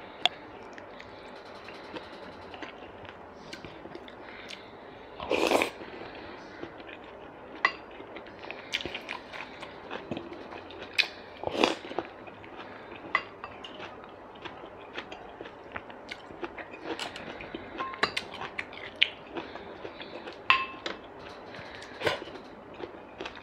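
Close-up eating sounds: chewing, and sipping or slurping soup off a wooden spoon, with two louder slurps about 5 and 12 seconds in. Scattered light knocks of the spoon against ceramic bowls run through it.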